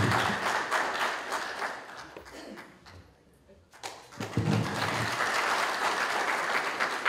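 Audience applauding, dying away about two and a half seconds in, then clapping starting up again after a brief pause of about a second.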